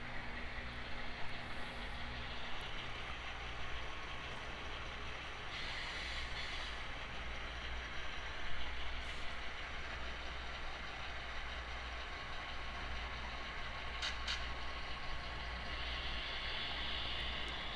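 HO scale model train running around the layout track: a steady low hum with running noise from the wheels on the rails.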